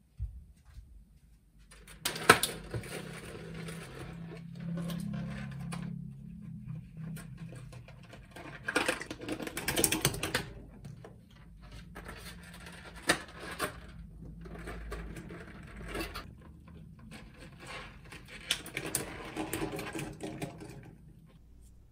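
Quail eggs clattering and rolling against the inside of a stainless steel pot as they are dropped in by hand and tipped from a plastic egg tray. They come in four rattling bursts of small clicks.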